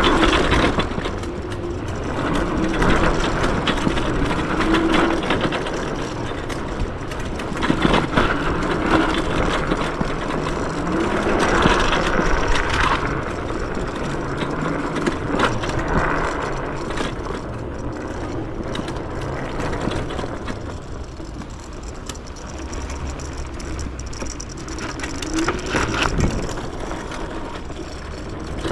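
Yume X11 electric scooter ridden fast over a dirt trail: steady tyre and wind noise with frequent knocks and rattles over bumps, and a faint motor whine that rises and falls with speed.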